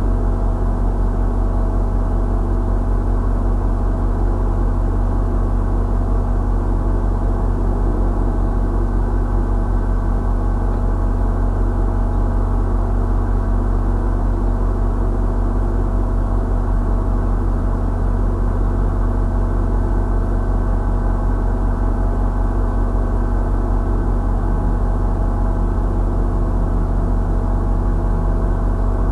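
Steady, low engine drone with a few constant tones over it, unchanging throughout: an engine idling at rest.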